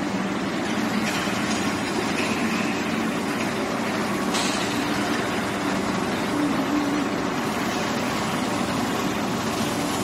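Steady mechanical drone of workshop machinery with a low hum, and a brief sharper sound about four seconds in.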